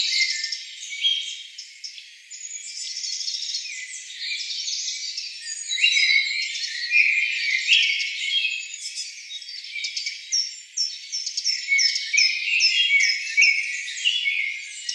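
Dense chorus of forest birds chirping and whistling over one another, with a run of short, repeated downward-sliding notes in the last few seconds.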